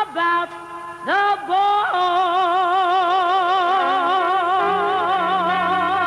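Background music: a melody line slides up into two short notes, then settles into one long held note with a wide, even vibrato.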